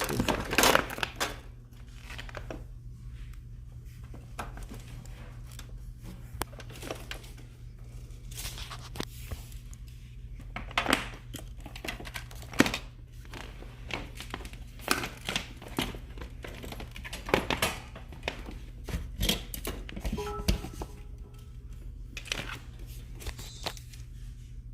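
Handling noise from rummaging: crinkling and rustling with scattered clicks and light knocks, over a steady low hum.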